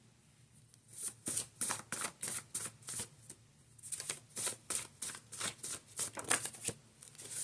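Tarot cards being shuffled by hand: a run of quick, irregular papery slaps and riffles that starts about a second in.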